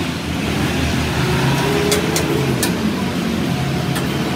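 Steady rumble of street traffic, with a few brief sharp clicks about two seconds in and again near the end.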